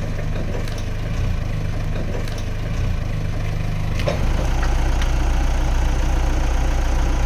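An engine running steadily at low revs, a little louder about four seconds in.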